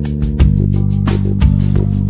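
Background music with a steady beat over held low notes.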